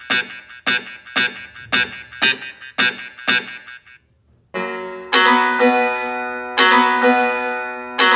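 Instrumental keyboard music: short, crisp struck notes about two a second, a brief break about four seconds in, then held piano-like chords.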